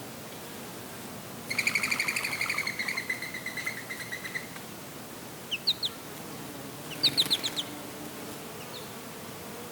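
A small songbird calling: a fast, rapid-fire trill that slows and fades over about three seconds, then two short high chirps and a quick run of high chirps about halfway through, over a steady outdoor background hiss.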